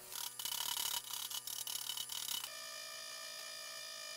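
Plasma torch on a Langmuir Systems CrossFire XR CNC table cutting 3/16 in steel plate, a loud hiss with a steady tone. About two and a half seconds in it gives way to a Baldor bench grinder running with a steady hum while a cut steel coupon is cleaned up on its wheel.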